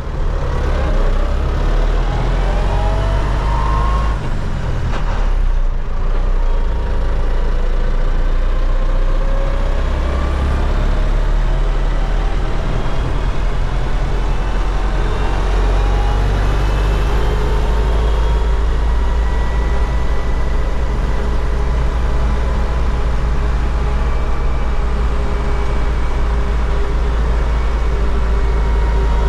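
MTZ-80 tractor's D-243 four-cylinder diesel running steadily under way, with a whine that slowly rises and falls in pitch. It dips briefly about four to six seconds in.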